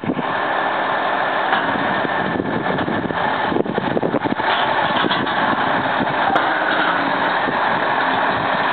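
Freightliner truck's diesel engine idling steadily, with a stretch of irregular clatter in the middle.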